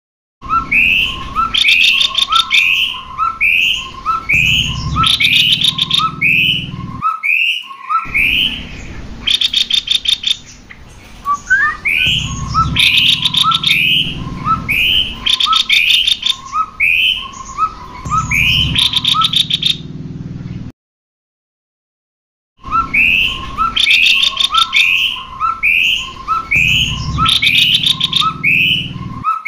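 Cucak kopi songbird calling over and over, a quick two-note call about twice a second, broken every few seconds by short rattling trills. The calling cuts out briefly twice.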